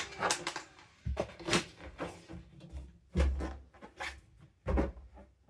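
Balloon packaging being handled: a series of short plastic rustles and clicks, with a few dull low thumps.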